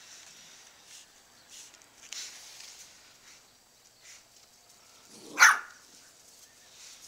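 A bull terrier gives one short, sharp bark about five seconds in, with only faint scattered ticks around it.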